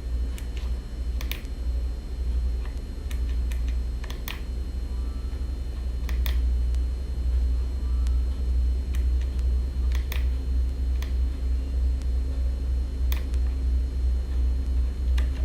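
Sharp single clicks every few seconds, typical of a motorcycle's handlebar switchgear buttons being pressed while paging through the dashboard menu, over a steady low rumble.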